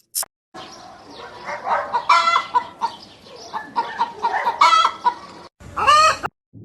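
Poultry calling: a run of short pitched calls over a noisy farmyard background, then after a brief cut a separate call whose pitch rises, near the end.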